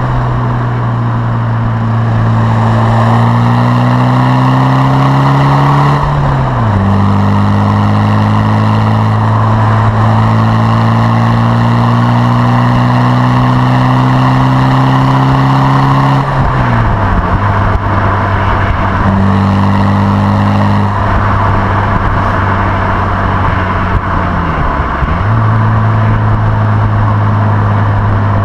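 Exhaust note of a remapped MG ZR 2.0 TD's four-cylinder turbo diesel, heard at the tailpipe of its decat pipe and Scorpion exhaust while the car is driven, over road and wind noise. The engine drones at fairly steady revs that creep slowly upward. The revs drop sharply about six and sixteen seconds in, and dip and recover near twenty-five seconds.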